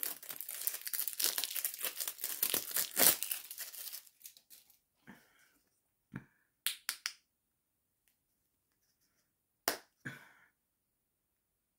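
Plastic wrapping being torn and crinkled off a small cosmetic bottle, a dense crackle for about four seconds, followed by a few short, separate clicks and rustles.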